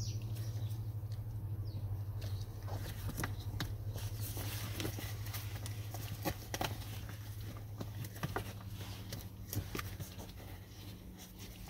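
Gloved hands working a car seat's leather cover over its foam cushion, making scattered rustles and sharp clicks. Under them runs a steady low hum that fades after about eight seconds.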